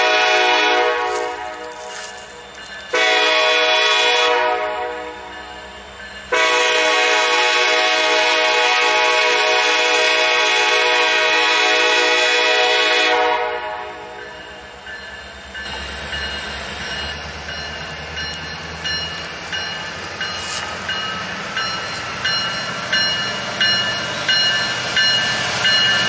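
Nathan Airchime K5LLA five-chime horn on a Norfolk Southern diesel locomotive: a blast trailing off about a second in, a short blast, then a long blast of about seven seconds, the pattern that ends a grade-crossing signal. Then the locomotive and coal train roll past with a rhythmic clacking of wheels over the rail that grows louder near the end.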